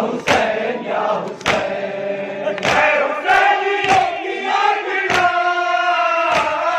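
A group of voices chanting a noha, a Shia lament, over a sharp beat that falls about every second and a quarter.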